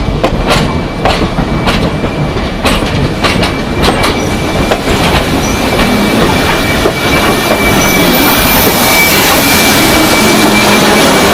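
Train of wagons behind a Class 24 steam locomotive rolling on the rails. Wheel clicks sound through the first few seconds, then from about halfway a steadier, louder running noise takes over with a thin, high wheel squeal.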